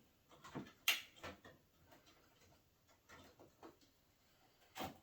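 Scattered light clicks and taps of DDR4 memory sticks and the plastic DIMM slot latches being handled inside a desktop PC case as the memory is removed, the sharpest click about a second in and another near the end.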